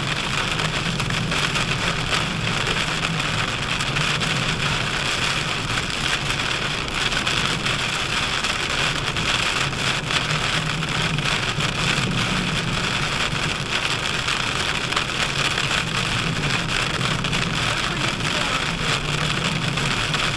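Heavy rain hitting a car's windshield and roof, heard from inside the moving car, over a steady hum of tyres on the wet road and engine.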